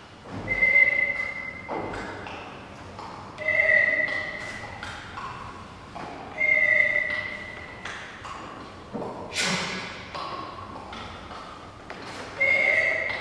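A clear, bell-like ping struck four times, about every three seconds, each ringing out over about a second. Between the pings come knocks and taps on a wooden floor, with one sharp, loud knock near the middle.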